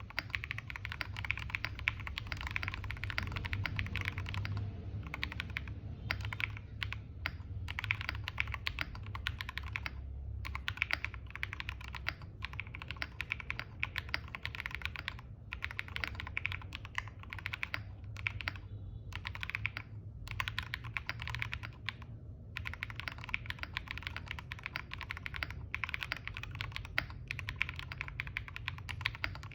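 Mechanical keyboard with SWK Yang switches, an aluminium plate and Cherry-profile keycaps being typed on continuously, rapid key clacks with a few brief pauses.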